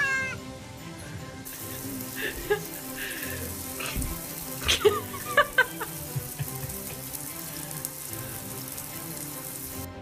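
Water hissing steadily as a shower runs into a bathtub around a soaking wet cat, with a few short high cries about five seconds in. The hiss starts suddenly after a cat's meow ends at the very start, and cuts off just before the end.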